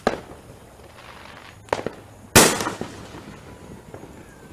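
Aerial fireworks bursting: a small bang at the start, a sharper crack about a second and a half later, then one loud bang with a rolling, fading echo about two and a half seconds in.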